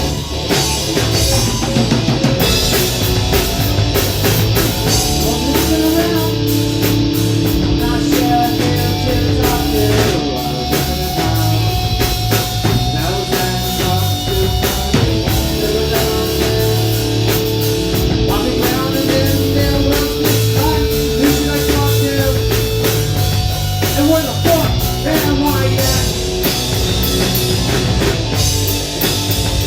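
Live rock band playing loud: drum kit and guitars, with long held notes over the drumming in the middle stretch.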